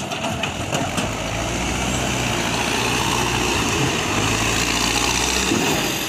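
Manitou backhoe loader's diesel engine running steadily, with a few sharp knocks in the first second. The sound breaks off abruptly near the end.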